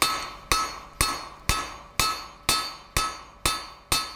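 Hand hammer striking a red-hot 12 mm square steel bar on an anvil, about two even blows a second, each with a short metallic ring: drawing out a chisel taper.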